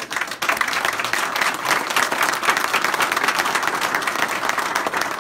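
A crowd applauding: many hands clapping together, starting all at once.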